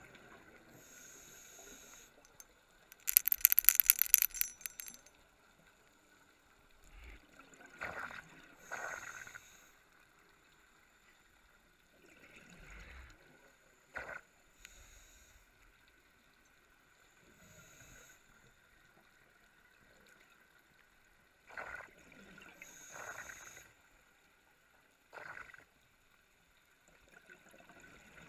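Scuba diver's regulator breathing underwater. A loud crackling rush of exhaled bubbles comes about three seconds in, followed by softer breaths and bubble bursts every few seconds.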